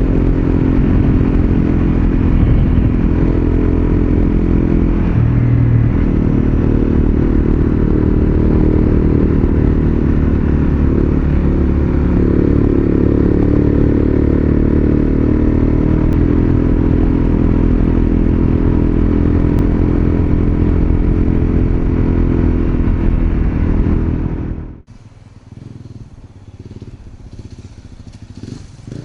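Honda CRF250L single-cylinder four-stroke motorcycle engine running steadily, with small changes in pitch. It cuts off abruptly about 25 seconds in, leaving quieter outdoor background.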